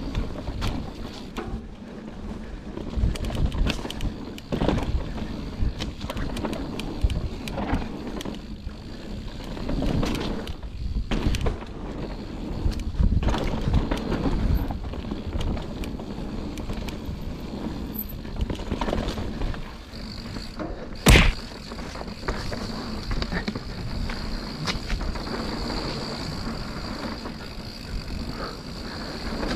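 Mountain bike ridden downhill on a rough dirt trail, heard from a bike-mounted action camera: tyres on dirt and the bike clattering and rattling over roots and bumps, irregularly. A single hard knock a little after 20 seconds in is the loudest moment, like a landing or hard hit.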